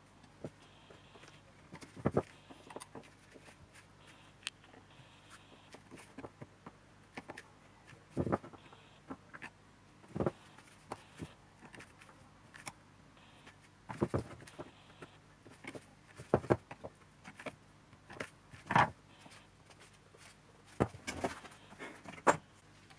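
A screwdriver clicking, scraping and knocking against the plastic and metal housing of a BMW E38/E39 auxiliary coolant pump while it is pried open by hand, with irregular sharp clicks spread throughout and parts knocked against a wooden workbench.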